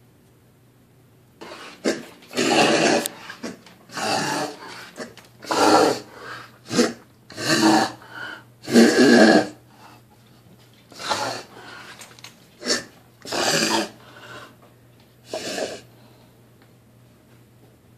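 Siberian husky coughing in a fit of about a dozen separate coughs, beginning about a second and a half in and spaced roughly one to two seconds apart: the cough of kennel cough.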